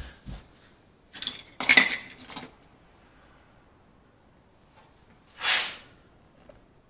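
Small metal tools and parts clinking and knocking against a workbench: a couple of dull knocks at the start, a quick cluster of sharp clinks about a second or two in, then a single short scrape about five and a half seconds in.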